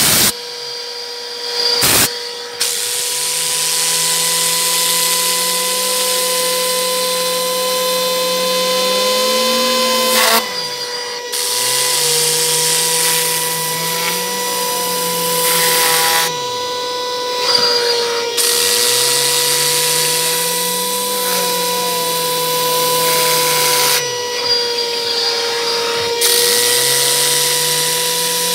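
Tornador Black Z-020 compressed-air cleaning gun blasting a car floor mat: a loud rush of air with a steady whine from its spinning tube. The air rush drops away briefly three times.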